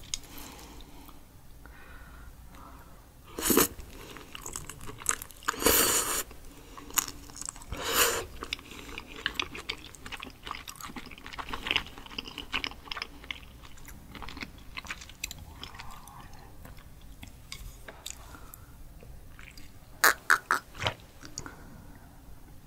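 Close-miked chewing and wet mouth sounds of someone eating raw sweet shrimp with sea cucumber intestines, with several louder bursts in the first eight seconds. A quick run of sharp clicks comes near the end.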